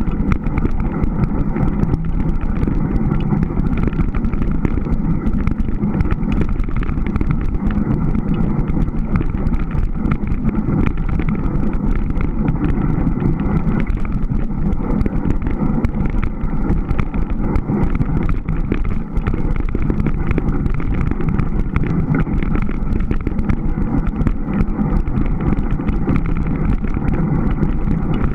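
Steady low rumble and rush on the microphone of a camera riding along on a fat-bike moving over snow, with no change or break throughout.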